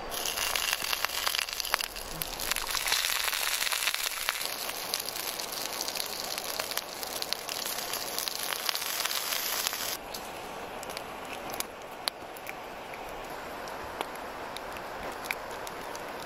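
Pork belly slices sizzling and crackling on a hot oiled stone slab. About ten seconds in the sizzle drops abruptly to a quieter hiss with scattered pops.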